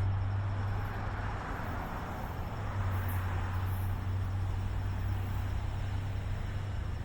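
NJ Transit train running past on the rails: a steady low rumble with a rush of wheel-on-rail noise that swells about one to three seconds in.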